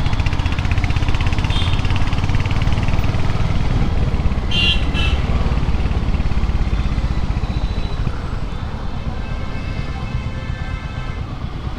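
Royal Enfield motorcycle's engine running steadily while riding in traffic, with wind rumble on the microphone. Two short high beeps sound about four and a half seconds in.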